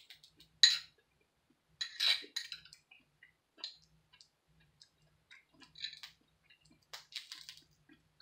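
Eating sounds: scattered short clicks and clinks of chewing and a utensil, the sharpest about a second in, a cluster around two seconds, and another run near the end.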